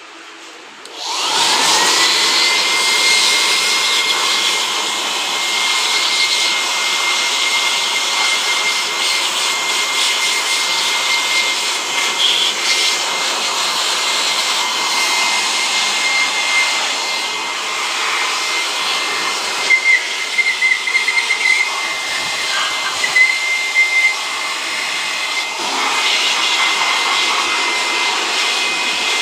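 Handheld electric air blower spinning up about a second in, its whine rising to a steady high pitch over a strong rush of air, blowing water off the freshly washed motorcycle's wiring and engine. A few short crackles come around two-thirds of the way through.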